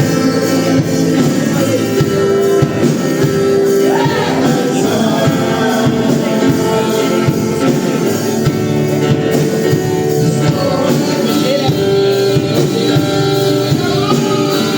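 Congregational worship music: a band playing with singing.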